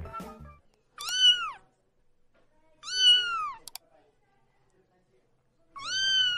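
A young kitten meowing while it is washed under a tap: three high meows, each rising then falling in pitch, about two seconds apart, the last a longer one starting near the end.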